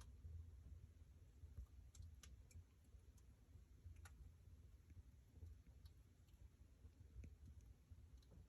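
Wood fire in a fireplace crackling faintly, with scattered, irregular sharp pops over a low rumble.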